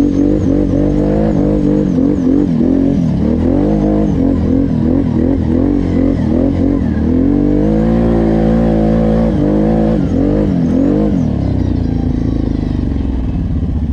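Off-road vehicle engine riding under varying throttle, its pitch rising and falling again and again as it speeds up and slows. Near the end it drops to a low, steady idle.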